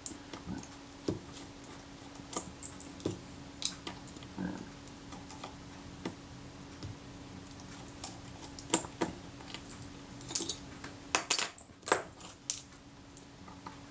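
Small metal tool clicking and scraping against the film advance lever of a Kodak Retina IIIS camera as the lever is worked loose and removed: scattered light metallic clicks and taps, several in quick succession about three quarters of the way through.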